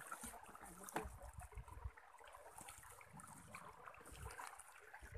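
Near silence, with faint rustles and a few soft knocks, the sharpest about a second in.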